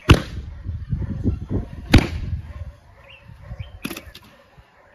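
Two sharp cracks about two seconds apart over a low rumble, then a fainter click near four seconds as the rumble dies away.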